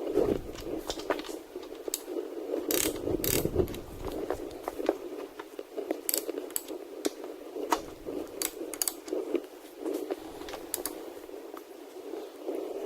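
Irregular metallic clicks and clinks of hand tools on the metal parts of a 25-pound Little Giant power hammer being taken apart.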